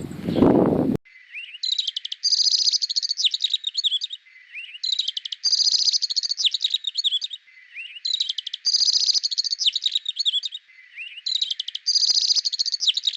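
A songbird singing the same phrase four times, about every three seconds: a soft opening note, a fast trill, then a warbling run of high notes. Before it, a rustling noise cuts off abruptly about a second in.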